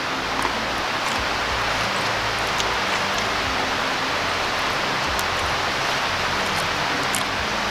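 Steady, even rushing hiss of outdoor background noise, like running water, with a few faint clicks.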